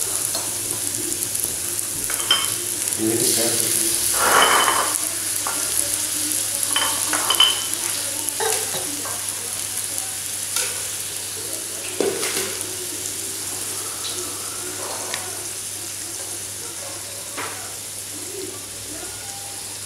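Cooked sea snail shells clicking and clattering as they are handled, picked from a plastic basin and set down on a tray, with a few sharper knocks over a steady hiss.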